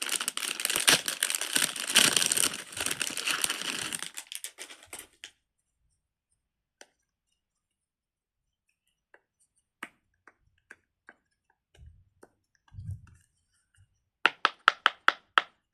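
A plastic fidget toy being handled and worked. First comes a dense crackling rustle for about four seconds, then near quiet with a few scattered light clicks and two soft thumps. Near the end a quick run of sharp clicks starts, about six a second.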